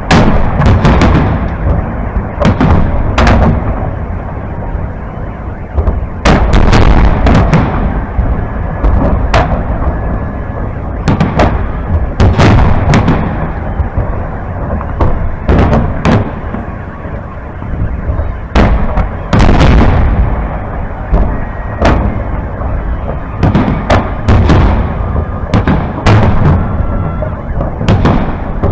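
Large aerial fireworks display close overhead: a rapid, irregular series of loud, sharp bangs from shells launching and bursting, coming in clusters, with a continuous low rumble between them.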